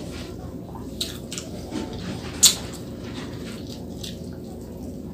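Close-up mouth sounds of a person eating fried frog: wet chewing with lip smacks and small clicks, the sharpest about two and a half seconds in.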